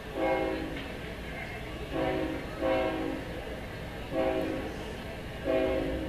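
CSX freight locomotive's air horn sounding a run of about five short blasts, each a chord of several notes, two of them close together in the middle. A low, steady rumble from the approaching train runs underneath.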